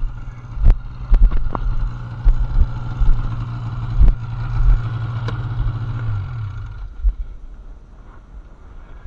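Snowmobile engine running at a steady speed, with occasional knocks and rattles; about six seconds in the engine note drops as the throttle comes off and the machine slows, leaving it much quieter.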